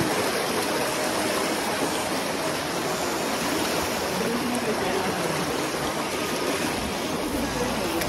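Shallow mountain stream rushing over rocks, a steady, even rush of water.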